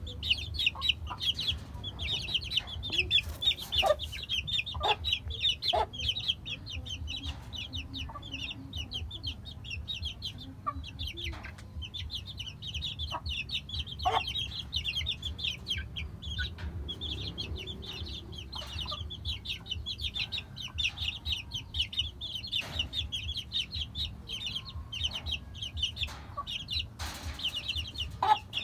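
A small flock of young chickens peeping in rapid, high-pitched runs with short pauses, mixed with occasional short clucks.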